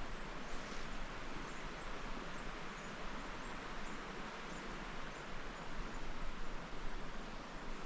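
Steady rushing of a river, with faint high chirps repeating about twice a second over it.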